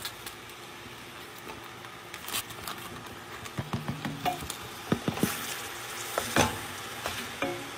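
Minced beef sizzling in a hot pot as it is browned, while a wooden spoon breaks it up, with repeated scrapes and knocks of the spoon against the pot that come thicker after about three and a half seconds.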